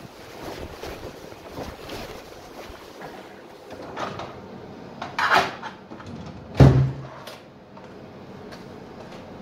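Scattered knocks and rustling, with two louder thumps, about five seconds in and again about six and a half seconds in.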